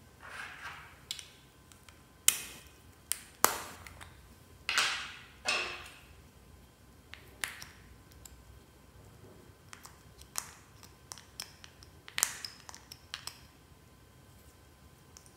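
Fluffy slime being worked by hand: about a dozen irregular sticky pops and clicks as air pockets in the slime burst while it is squeezed and stretched.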